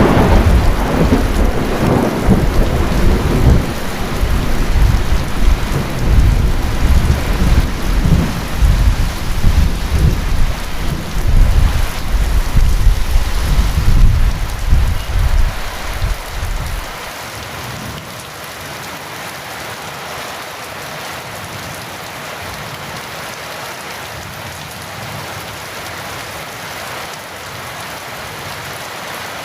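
Heavy rain falling steadily, with long low thunder rumbling through the first half; the thunder stops abruptly a little past halfway, leaving only the steady hiss of rain.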